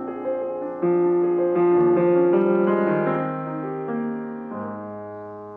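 Fazioli F308 concert grand piano played with the una corda (soft) pedal held down: slow, sustained chords, a louder chord about a second in, then the sound slowly fading near the end.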